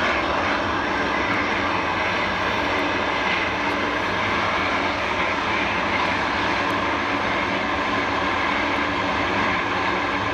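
Boeing 747-400's four turbofan engines idling with the jet standing still: a steady, unchanging rush with several held tones running through it.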